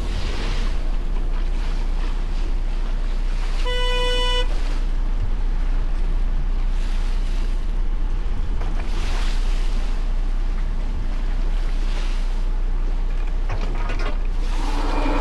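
Boat engine running steadily under wind and water noise that swells now and then. About four seconds in comes one short, high electronic beep.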